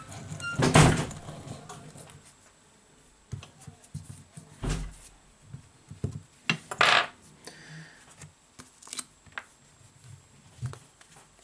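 Small hand tools and a phone's display frame being handled on a work mat: scattered clicks, taps and short scrapes, with the loudest scrape about a second in and a dull knock near the middle.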